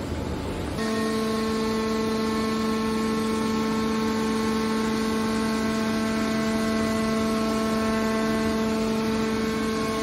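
Hydraulic scrap metal baler's power unit running: a steady, unchanging hum from the electric motor and hydraulic pump, setting in about a second in, while the hydraulic cylinders fold the baler's lid shut.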